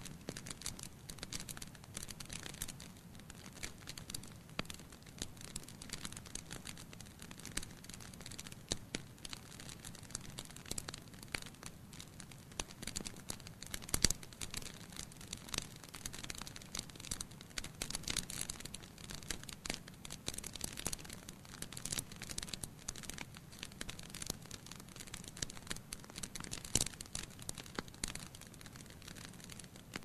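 Wood logs burning in a fireplace, crackling with a dense, irregular run of small snaps and pops. A louder pop comes about halfway through and another near the end.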